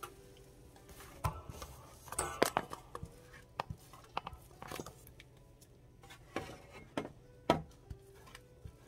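Thick, hot acorn jelly being scraped out of a saucepan into a stainless steel tray with a silicone spatula: irregular knocks and scrapes of spatula and pot against metal, loudest about two and a half and seven and a half seconds in.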